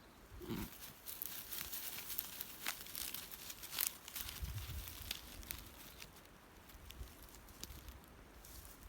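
Rustling and crackling: a dense run of small crisp clicks lasting about five seconds, with a couple of low thuds partway through, then fading.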